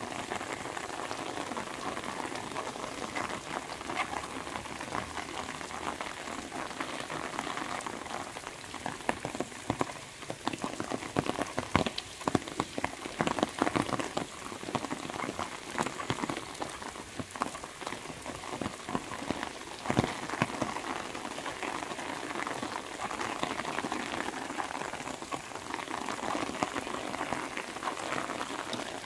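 Steady rain pattering on the road and surrounding foliage. From about ten to twenty seconds in it is joined by louder, sharper ticks of drops.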